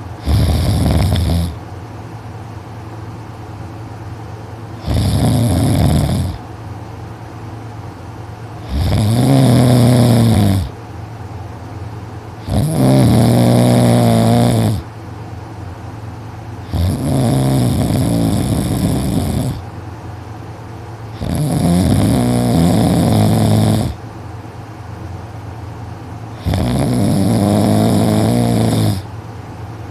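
A sleeping teenager snoring loudly and heavily, in a steady breathing rhythm: seven deep, rattling snores, each one to two and a half seconds long, about four seconds apart.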